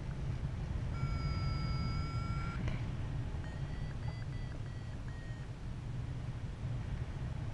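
Paragliding variometer beeping: a held tone for about a second and a half, then a quick run of short beeps, over a steady rush of flight wind on the microphone.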